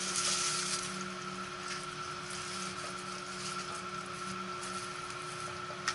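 A machine running steadily in the background: an even hum with a few constant tones and a hiss. A brief knock comes just before the end.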